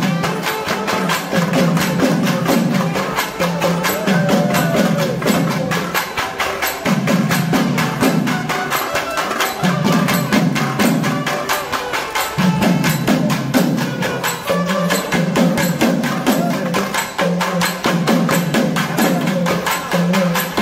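Naiyandi melam, a Tamil temple folk band, playing: fast, driving drum strokes with no break, over a low droning tone that cuts in and out every second or two.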